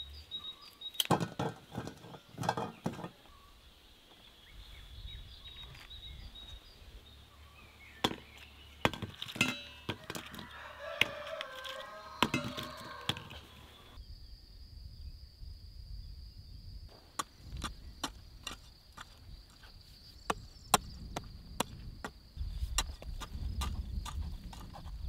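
Rural outdoor sounds: scattered light clicks and handling noises, with a rooster crowing about ten seconds in. After a sudden change of background, footsteps on dry tilled soil with a steady high tone behind them.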